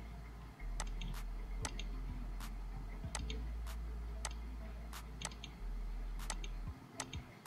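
Computer mouse clicking at irregular intervals, about a dozen sharp clicks, over a steady low electrical hum.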